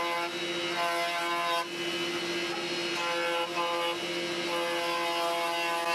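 Warrior jointer running with a steady hum while an ash board is fed by hand across its cutterhead. The cutting sound comes and goes in several stretches as the board passes over the knives.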